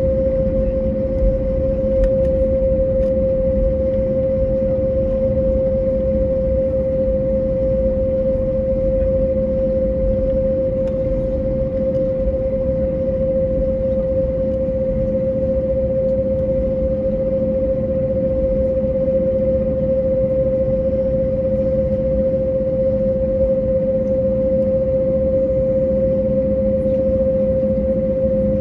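Cabin noise of an Airbus A321neo taxiing, with its Pratt & Whitney PW1100G geared turbofan engines at idle: a steady, pitched hum over a low rumble.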